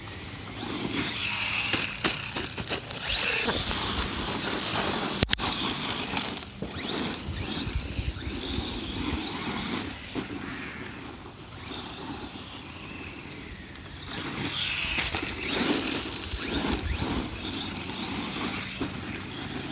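Redcat Volcano radio-controlled monster truck driving around, its motor whining high in surges that come and go, with one sharp knock about five seconds in.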